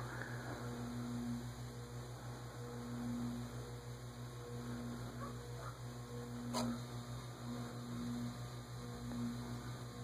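Evergo/Leslie-Locke 'banana fan' ceiling fan running on slow speed, its motor giving a steady low buzz that swells and fades about every second and a half. It is not silent, but not outrageously loud. One faint click about two-thirds of the way through.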